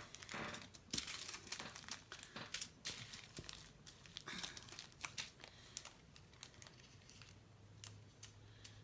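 Small plastic bags of diamond painting drills crinkling faintly as they are handled, with quick rustles that grow sparser in the second half.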